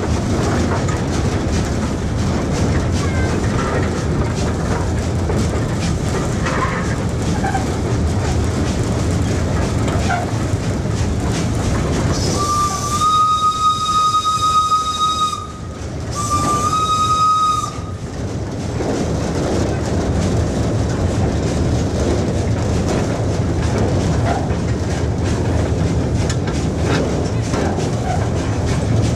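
Wood-fired steam locomotive running, heard from its tender as a steady rumble and rattle. About halfway through its steam whistle blows twice, a long blast followed by a shorter one.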